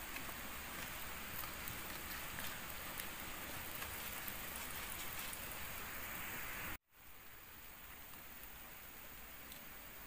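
Steady rain hiss with scattered drip ticks. About two-thirds of the way in it cuts out abruptly and comes back quieter.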